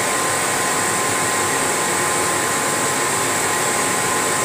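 Laser engraving machine running as it engraves a wooden sheet: a steady rushing air noise with a thin, steady whine.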